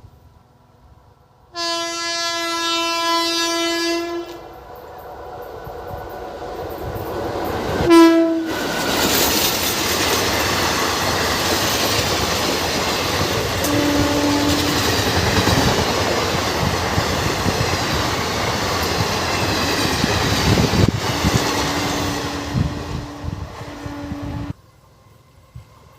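Train horn: one long blast about two seconds in and a short blast about eight seconds in. Then an express train passes at high speed in a loud, steady rush of wheel and rail noise for about sixteen seconds, with fainter horn tones during the pass. The noise cuts off suddenly near the end.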